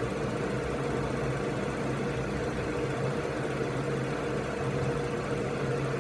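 Steady electrical hum with a fainter higher tone under a hiss of static: the open channel of a weather-alert radio broadcast between messages.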